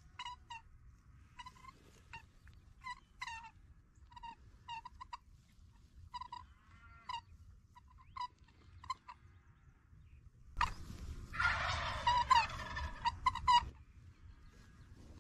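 Wild turkeys calling: a series of short pitched calls, one or two at a time, then, about ten seconds in, a tom gobbling loudly for about three seconds.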